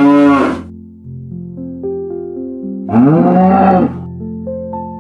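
Cow mooing twice over light background music: the first long moo ends about half a second in, and a second moo that rises then falls comes about three seconds in.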